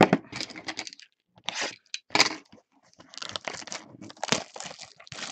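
Trading-card packaging, foil wrappers and plastic, crinkling and tearing in a string of short noisy bursts, with a few sharper cracks about two seconds in and again past four seconds.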